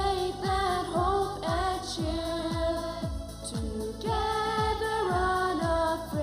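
The school song sung in long held notes over music with a steady low drum beat about twice a second.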